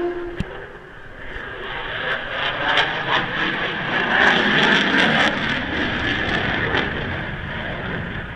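An aircraft flying over, its engine noise swelling to a peak about halfway through and then slowly fading.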